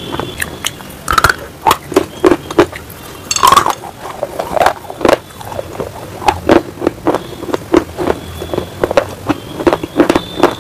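Close-up crunching and chewing of hard baked clay and slate pieces. The sound is a quick, uneven series of sharp crunches, a few each second.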